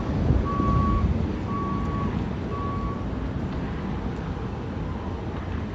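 A vehicle's reversing alarm beeping, one steady high beep about every second, stopping about three seconds in, over a low engine rumble.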